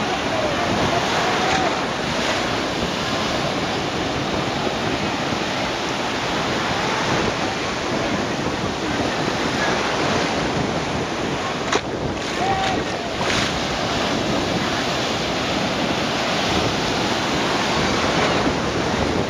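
Breaking surf washing in shallow water, with strong wind buffeting the microphone, a steady rushing noise throughout. A single sharp click about twelve seconds in.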